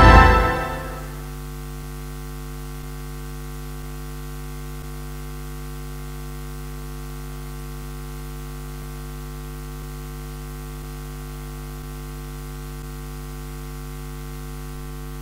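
The last brass chord of the dance music dies away in the first second, leaving a steady electrical mains hum with a buzzy stack of overtones that does not change.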